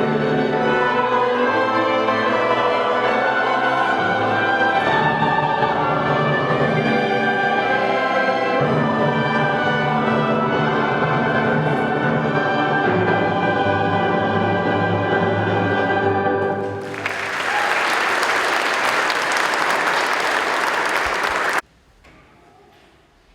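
Closing bars of a live ensemble piece in held chords, then audience applause that cuts off suddenly after about five seconds.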